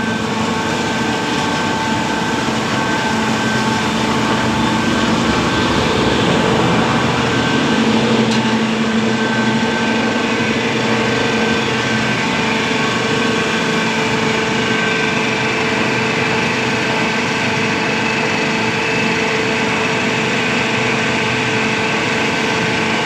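Power-plant coal handling conveyor running: a steady mechanical drone with several constant humming tones held over it.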